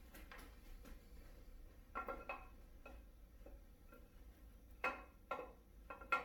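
Camshaft being slid by hand into the cam tunnel of a 6.0 LQ4 LS V8 block, giving a few light metallic clinks: a pair about two seconds in, another pair about five seconds in, and more near the end.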